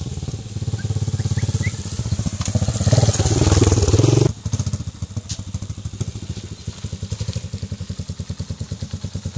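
Shineray 200cc air-cooled single-cylinder four-stroke engine in a small Honda XR100 dirt bike, riding and growing louder as the bike comes close. About four seconds in the sound drops suddenly, and the engine goes on at low revs with a slower, even thump, quieter.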